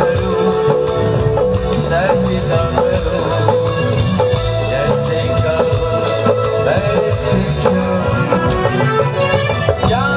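Live stage band music: sustained keyboard melody over bass and a steady drum beat.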